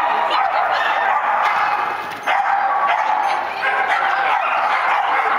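Shetland sheepdog barking repeatedly in high-pitched yaps while running, with only a brief pause a little over two seconds in.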